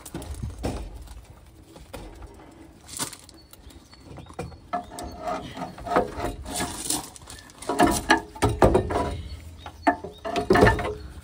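Heavy lorry batteries being lifted out of and set into a steel battery box: irregular clunks, knocks and scrapes of battery cases on metal, with several heavier clunks in the second half.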